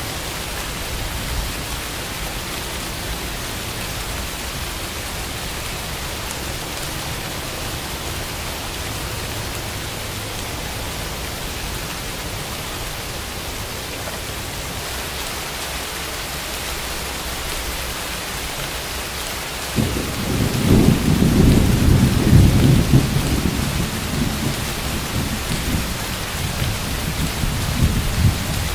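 Steady rain falling. About twenty seconds in, a thunderclap breaks in suddenly as a loud, low rumble, which rolls on more weakly for several seconds.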